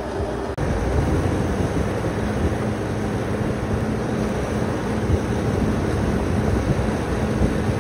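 A steady low rumble of machinery running, broken by a brief dropout about half a second in.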